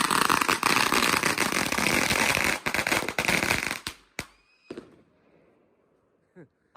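Consumer firework cake going off in a dense run of bangs and crackling, which stops about four seconds in as the cake burns out, leaving a few last scattered pops.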